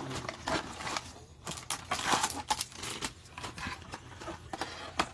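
A cardboard trading-card hanger box being opened by gloved hands, with the cards pulled out: irregular crinkling, rustling and small clicks of cardboard and plastic wrapping.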